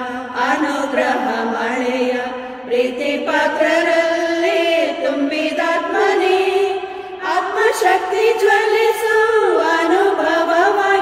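A women's choir singing a hymn, mostly long held notes that shift in pitch every second or two, as the closing hymn of the Mass.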